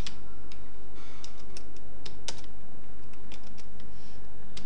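Typing on a computer keyboard: a dozen or so irregular key clicks, with a short pause a little past the middle, over a steady low hum.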